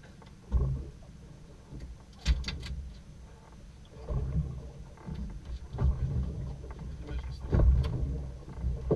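Noise aboard a small fishing boat: irregular low rumbling that swells and fades, with a few sharp knocks, one about two seconds in and another near the end.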